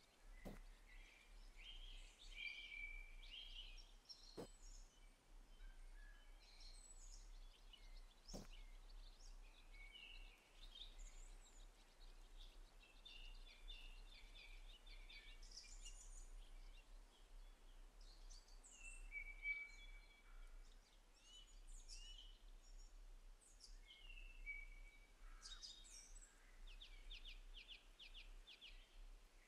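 Quiet outdoor ambience with small birds chirping and trilling faintly on and off. Three soft clicks come a few seconds apart near the start.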